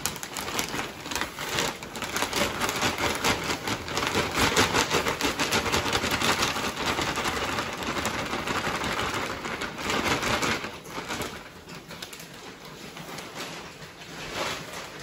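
Milk replacer powder pouring from a sack into a stainless steel mixing tank: a dense hiss full of small crackles, with the sack rustling, that dies down about ten seconds in.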